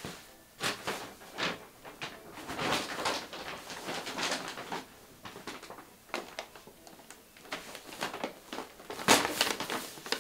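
Brown paper shopping bag rustling and crinkling as it is carried, with scattered knocks and bumps; the loudest rustle comes about nine seconds in.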